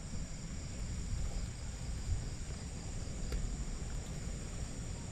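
Insects chirring in a steady high-pitched drone, over a low rumble, with one faint tick about three seconds in.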